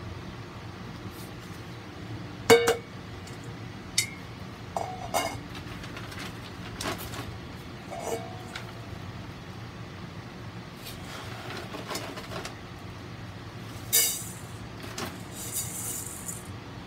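Scattered knocks, clicks and light clinks of objects being handled. A sharp knock about two and a half seconds in is the loudest, and short rustling or hissing bursts come near the end.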